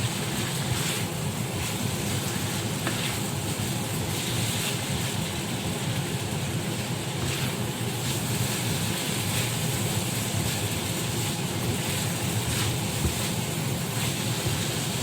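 Steady hiss of a vegetable filling frying in a pan on the stove, with a few faint taps of a spatula against the pan.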